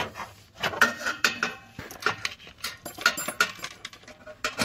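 Irregular clicking and metallic rattling as the thin metal gas tubes, thermocouple line and bracket of a water heater's new pilot assembly are handled and fitted into place.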